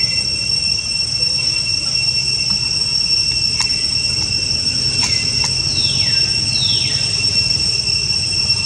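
Steady high-pitched drone of insects, held at two fixed pitches. A little past halfway, two or three short high calls slide down in pitch, and a few faint clicks are heard.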